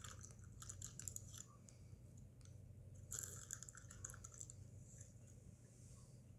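Faint crinkling of a Cheetos snack bag as a hand rummages inside it, in two bouts of rapid crackling: one at the start and one about three seconds in.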